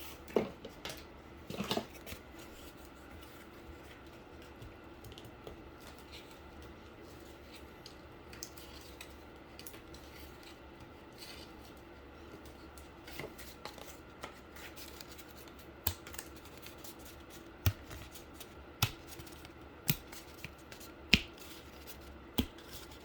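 Cardboard case parts being handled and fitted by hand: scattered sharp taps and clicks, a couple about a second in and more of them bunched in the last several seconds, over a faint steady hum.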